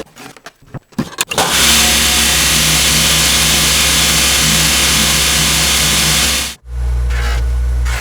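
A few clicks, then an electric shop machine starts and runs steadily with a loud hiss and a low hum. It cuts out for an instant near the end and resumes with a heavier hum.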